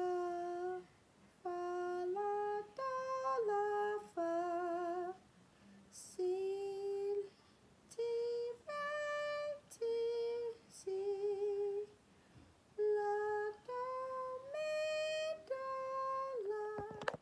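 A woman singing unaccompanied, holding single notes, some with vibrato, in three five-note arches: each rises through a broken chord and comes back down, and each group starts a step higher than the last. It is a sight-singing exercise of broken chords in the harmonic minor.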